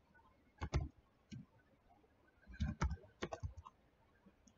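Keystrokes on a computer keyboard: a couple of key clacks under a second in, then a quick run of several keys about three seconds in.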